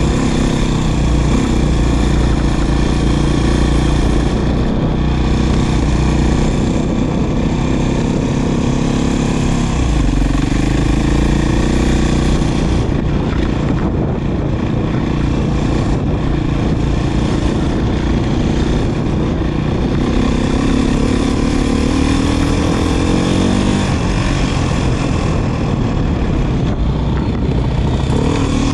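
Beta 500 RR dirt bike's single-cylinder four-stroke engine running under way, its pitch rising and falling several times as the throttle is opened and closed.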